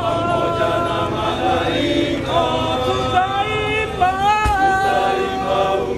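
A group of voices singing a chant-like hymn in unison, with long held notes that slide between pitches. One low thump near the middle.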